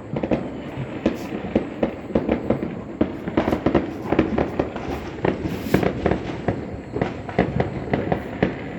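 Firecrackers going off in a rapid, irregular string of sharp bangs, several a second.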